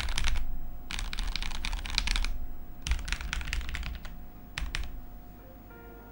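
Custom 980-layout mechanical keyboard with lubed Gateron Milky Black linear switches, Akko double-shot PBT keycaps and a frosted stacked acrylic case, typed on in quick runs of keystrokes. There are three runs of about a second each, then a short burst, and the typing stops about a second before the end.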